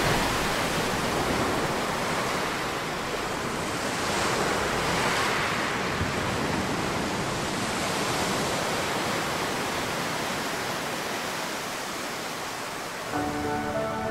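Steady rush of sea surf and wind, swelling and easing slowly. Soft music with held notes comes in near the end.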